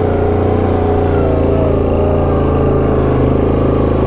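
Yamaha Grizzly 700 ATV's single-cylinder engine running steadily as it is ridden, its pitch wavering slightly.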